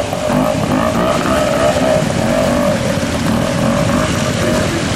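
Pre-65 trials motorcycle engine working up a rocky stream bed, its note wavering as the rider works the throttle, over the rush and splash of the stream.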